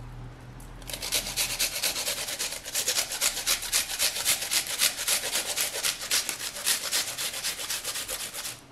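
Onion being grated on a small handheld metal grater: quick, rhythmic scraping strokes, several a second, starting about a second in and stopping just before the end.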